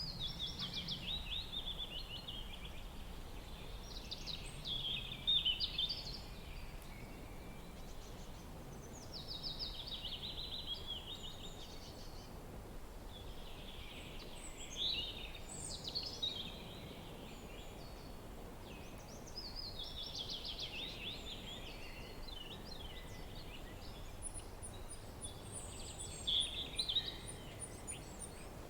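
A songbird singing short descending trilling phrases, repeated about every five seconds, over a steady low wind rumble. Near the end a second bird adds a quick run of very high, thin notes.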